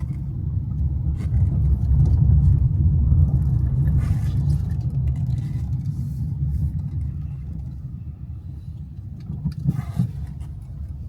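Car driving: a steady low rumble of engine and road noise that eases off toward the end.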